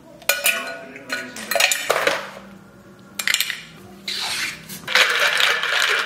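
Small hard objects clinking and clattering, like dishes or cutlery being handled: several separate knocks in the first few seconds, then about two seconds of steady hiss.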